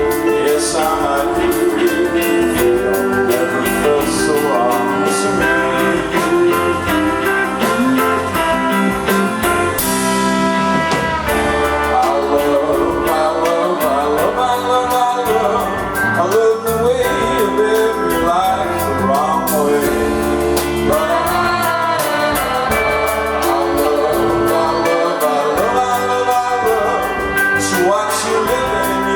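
Live rock band playing a song, with electric guitars, drums and singing.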